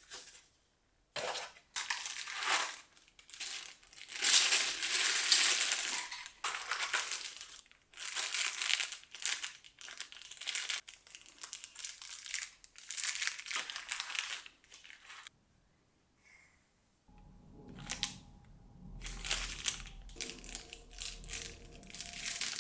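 Plastic and paper packaging crinkling and rustling in irregular bursts as it is unwrapped and handled, with a short pause about two thirds of the way through.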